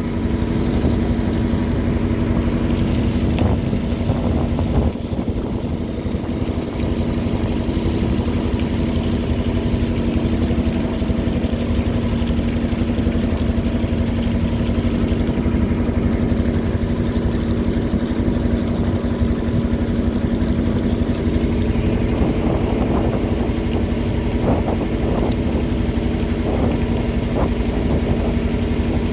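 River boat's engine running steadily, a constant even drone.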